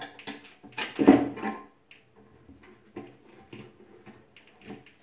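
A screw being turned by a gloved hand into the fixing hole of a ceramic washbasin half-pedestal cover. Small scrapes and clicks, loudest about a second in, then lighter ticks.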